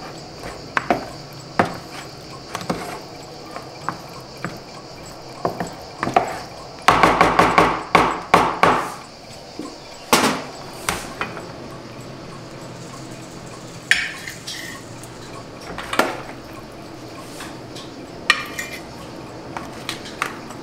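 Wooden spoon knocking and scraping against a plastic mixing bowl as cooked pasta is stirred, with a burst of rapid clattering about seven seconds in and a couple of louder knocks just after. Later come a few ringing clinks of ceramic plates and utensils as the pasta is served.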